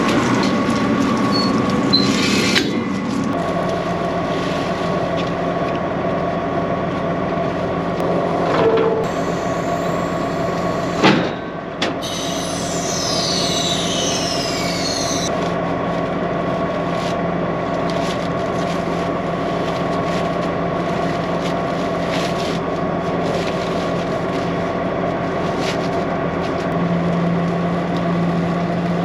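John Deere cotton picker running steadily under power, its engine and fans giving a constant drone with several steady tones. A few light clicks and one sharp knock about eleven seconds in.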